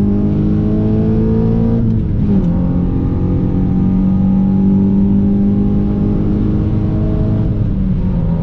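Honda Civic Si's 2.4-litre K24 four-cylinder engine accelerating under load. Its pitch climbs, falls sharply at an upshift about two seconds in, climbs again, and falls at another shift near the end.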